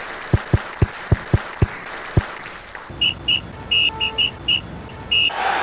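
A run of seven sharp low thumps, then a traffic officer's whistle giving about eight short shrill blasts over a bed of traffic noise.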